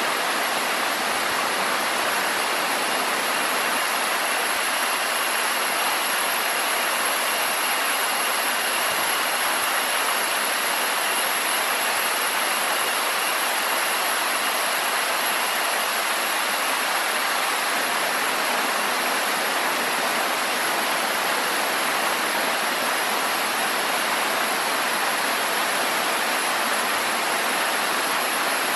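Steady rushing noise of running water, even and unbroken, with a thin high steady tone held above it.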